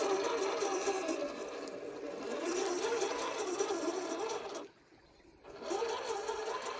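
Electric motor and geared drivetrain of an RC rock crawler whining, the pitch wavering up and down with the throttle. It stops for about a second, about two-thirds of the way through, then starts again.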